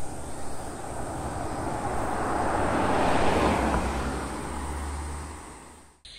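Mercedes-Benz GLS 400 d 4MATIC SUV, with a six-cylinder diesel, driving past. Its tyre and engine noise swells to a peak about three seconds in and then fades as it moves away, before cutting off suddenly near the end.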